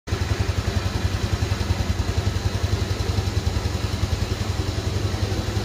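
Motorcycle engine idling steadily, its exhaust giving a rapid, even low throb.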